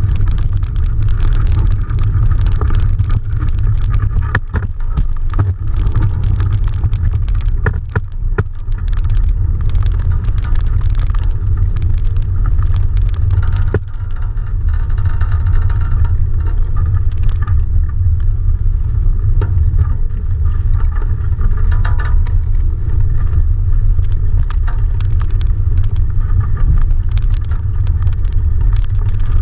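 Wind buffeting the microphone of a mast-mounted camera on a small sailing dinghy under way, a steady low rumble with a few sharp knocks.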